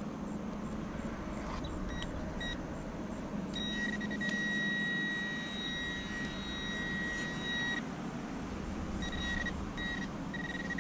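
Metal-detecting pinpointer beeping a steady high tone. It gives two short beeps, then holds one continuous tone for about four seconds, then beeps in short pulses near the end: it has found the buried target in the hole. Scraping of digging in the dirt goes on underneath.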